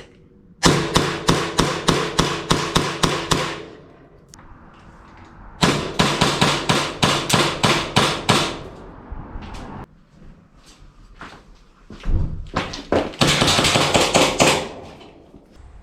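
Airsoft 2011 Combat Master pistol fired rapidly, three strings of about four shots a second with a few single shots between, the slide cycling and BBs striking the target with sharp cracks.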